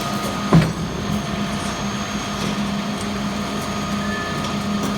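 Heavy vehicle engine running steadily with a constant hum while a shipping container is moved into place, with one sharp knock about half a second in.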